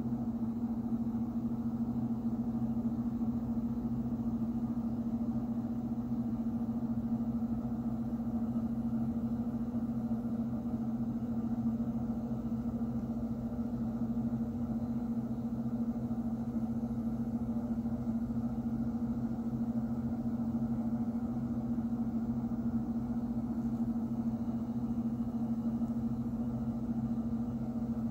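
A steady low hum with no change in pitch or level.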